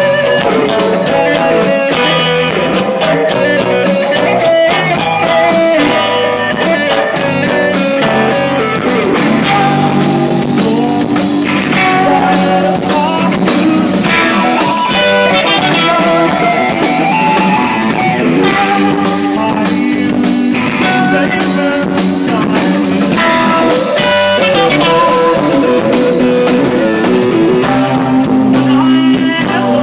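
Live rock band playing an instrumental passage: interlocking electric guitar lines over a steady drum kit beat, no vocals.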